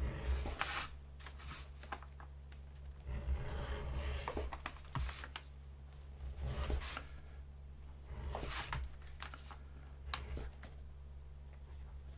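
Edge beveller shaving the edge of veg-tanned leather, a run of short scraping strokes with gaps between them.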